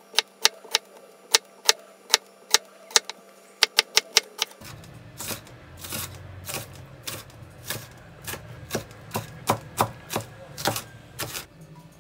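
Chef's knife dicing a white onion on a wooden cutting board: a run of sharp, irregular knocks, about three to four a second. After about four and a half seconds the knocks turn softer and a low hum runs beneath them.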